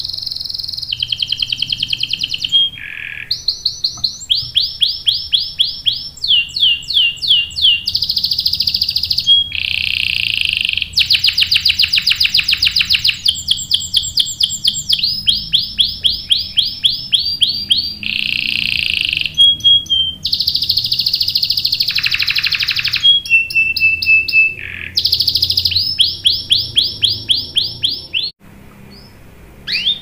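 Domestic canary singing a long, unbroken song of fast trills, each made of rapidly repeated notes, switching to a new trill every second or two, with a few harsher buzzing stretches. The song stops near the end.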